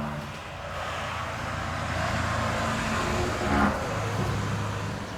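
A road vehicle passing by, its noise swelling to a peak about three and a half seconds in and then fading, over a steady low hum.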